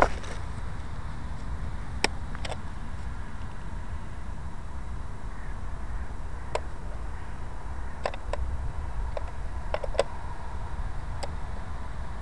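Wind buffeting the microphone of the plane's onboard camera as it rests in the grass, a steady low rumble with scattered sharp clicks now and then.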